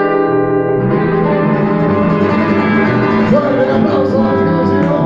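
Live band music: a steel-string acoustic guitar and an electric bass playing together, with chords ringing on.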